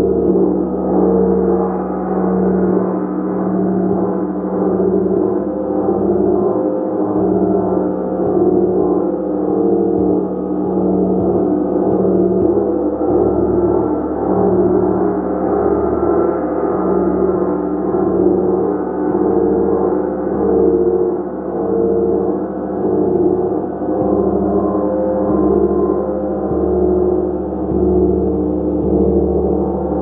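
A 36-inch gong played continuously with repeated soft strokes, giving a sustained wash of overlapping low tones that swells and ebbs every second or two.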